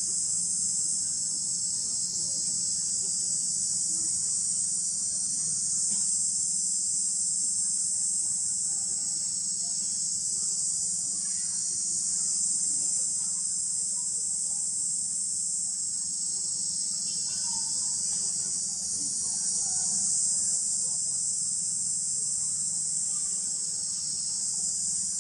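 Steady high-pitched insect chorus, unbroken throughout, over a faint low hum.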